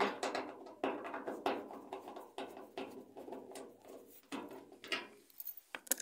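An 8 mm socket on an extension turning a bolt out of a Maytag washer's motor cover: a run of irregular metallic clicks and knocks, several a second.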